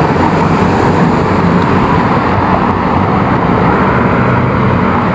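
Steady road-traffic noise of cars, vans and a bus running along a busy multi-lane avenue, with a low engine hum that holds steady and no sudden events.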